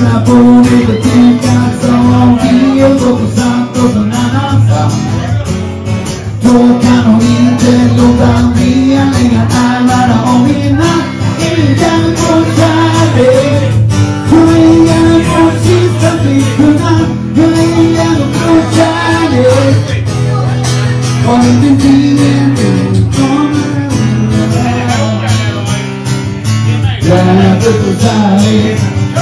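Live song: a man's singing voice accompanied by an acoustic guitar, played without a break.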